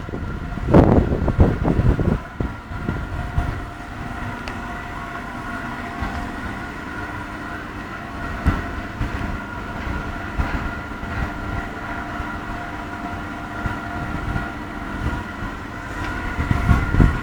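A machine running steadily: a constant hum with several steady whining tones, and gusts of low rumble in the first couple of seconds and again near the end.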